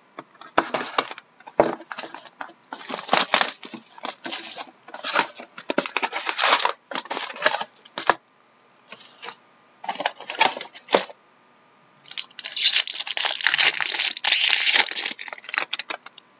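Trading card box and pack wrappers being torn open and handled: repeated bursts of rustling and tearing, with a longer unbroken stretch of it near the end.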